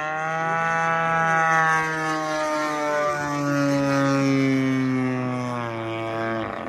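Extra NG aerobatic model plane flying overhead: a steady, pitched motor-and-propeller drone that swells in, drops in pitch about halfway through, and falls away sharply near the end.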